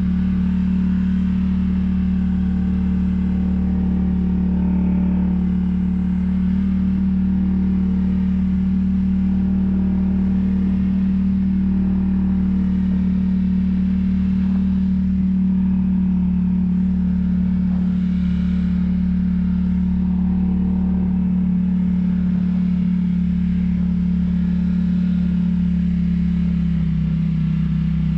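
ATV engine running at a steady, even speed as the quad is ridden over snow, its note dropping slightly near the end.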